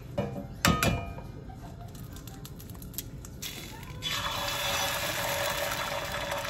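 Egg knocked against the rim of a cast-iron skillet, a sharp double knock with a brief ring a little under a second in. From about four seconds in, a steady sizzle of egg frying in the hot pan.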